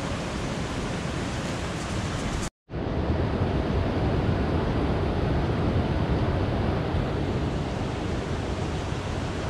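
Fast-flowing river rushing over rocks, a steady wash of water noise. It drops out to silence for a moment about two and a half seconds in, then carries on.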